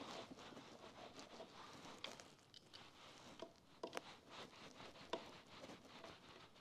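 Faint hand-tool handling: a screwdriver turning the seat-bracket screws, with a few light metallic clicks about 2, 4 and 5 seconds in.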